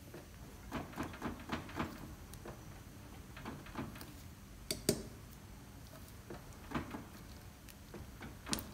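Torque wrench ratcheting in short runs of metallic clicks as a stainless steel brake disc bolt is tightened on a motorcycle wheel, with a few single sharper clicks.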